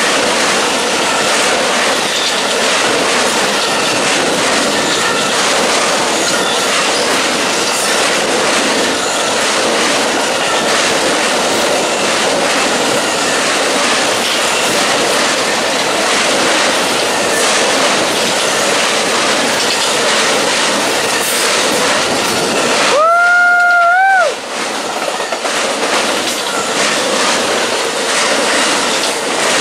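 Amtrak Auto Train cars rushing past at speed close by, a steady roar of wheels on rail with irregular clicks from the rail joints. About three-quarters of the way through, the rush briefly drops away under a high tone about a second long that rises slightly at its end.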